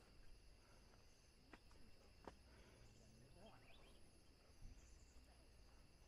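Near silence: faint outdoor ambience with a steady high insect drone, two faint ticks, and a brief faint rising chirp about three and a half seconds in.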